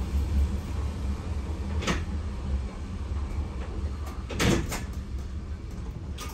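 Inside the cab of a Berlin U-Bahn F-type train: a low rumble that dies down after about two seconds. A sharp click comes about two seconds in, and a pair of clunks about four and a half seconds in.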